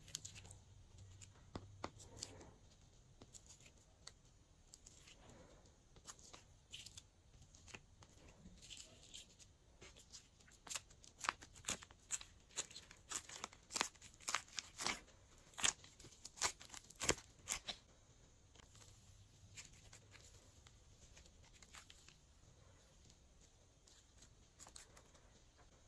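Glossy slime being squeezed and stretched by hand, giving sharp sticky clicks and pops. They come sparsely at first, crowd together and grow loudest in the middle, then thin out toward the end.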